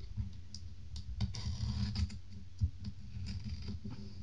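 Kitchen knife blade cutting the seal label along the seam of a cardboard phone box: a run of small clicks and scratching strokes, with a longer scrape a little over a second in.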